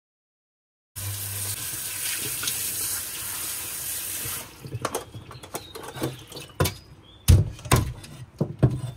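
Tap water runs steadily onto a wooden chopping board in a stainless-steel sink, over lemongrass and kaffir lime leaves, and stops after about three seconds. Then a cleaver comes down on the lemongrass against the board in several sharp knocks, with smaller handling clicks between them.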